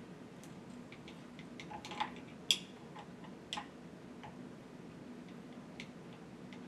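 Scattered sharp metallic clicks and taps of a screwdriver blade working in the brass screw stops of a Rohl R83 shower valve as the supply stops are turned open, the loudest click about two and a half seconds in.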